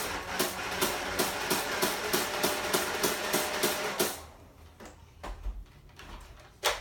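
Nerf Mega Mastodon motorized blaster firing full-auto: a fast steady rattle of about five shots a second over the whir of its motors. It stops about four seconds in, and a single sharp click follows near the end.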